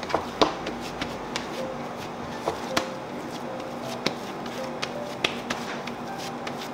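Hands kneading and patting a ball of meat-pie dough on a wooden cutting board: irregular soft slaps and knocks, about a dozen, over a steady low hum and faint background music.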